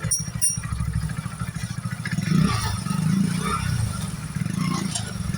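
Hero HF Deluxe motorcycle's single-cylinder engine running steadily, with a few light clicks and some uneven mid-pitched noise over it.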